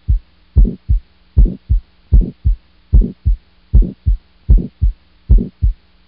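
Auscultation recording of a heart with aortic stenosis: paired lub-dub beats repeating steadily at about 75 a minute, over a faint steady hum. It is the teaching example of the systolic crescendo-decrescendo murmur of aortic stenosis.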